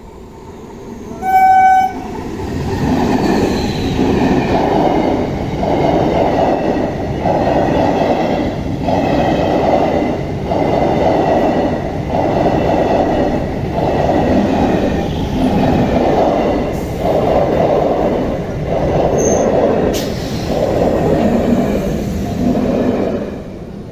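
A 12-coach MEMU electric multiple unit train sounds one short horn blast. It then runs past at speed, its wheels and coaches making a loud rumble that pulses a little more often than once a second. The rumble fades away shortly before the end.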